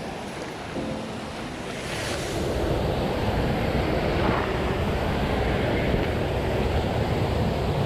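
Rushing water of a mountain headwater stream, a steady noise that grows louder about two seconds in.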